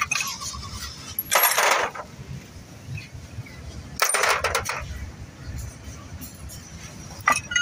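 Steel car parts and tools clattering against each other and a concrete floor during a front wheel hub removal: two short rattling clanks, about a second and a half in and about four seconds in, then a single sharp click near the end.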